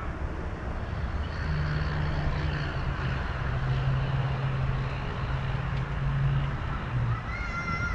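A large road vehicle's engine drone swelling as it passes, with a short high-pitched whine near the end.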